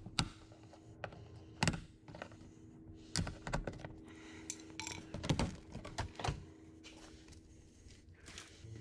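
A handful of sharp plastic clicks and taps, spaced irregularly, as a flat blade screwdriver pries a plastic push-pin retainer out of a 2016-2022 Toyota Prius's plastic underbody skid plate.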